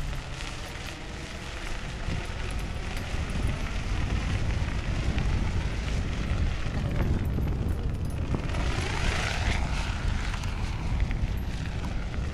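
Wind buffeting the microphone: a steady low rumble that rises and falls with the gusts, with a hiss that swells about two-thirds of the way through.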